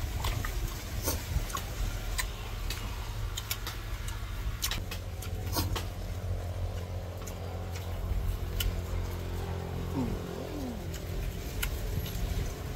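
Scattered crisp clicks of chewing and biting crunchy raw green mango, over a steady low engine hum.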